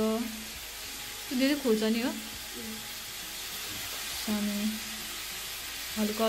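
Chopped tomatoes sizzling in hot oil with fenugreek seeds in a steel kadai over a gas flame, a steady frying hiss.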